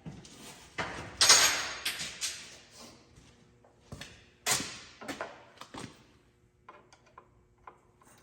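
Hand work on a skid steer's engine: irregular knocks, clatter and short scraping rustles as tools and parts are handled, loudest about a second in, with lighter ticks near the end.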